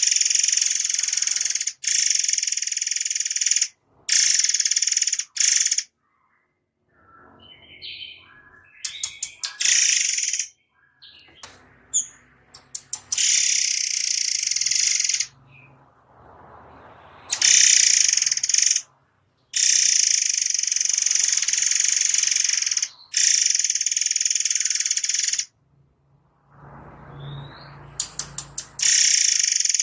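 A murai air mancur songbird singing a rapid, dense, high-pitched song in long stretches that start and stop abruptly several times, with softer scattered chirps in the gaps.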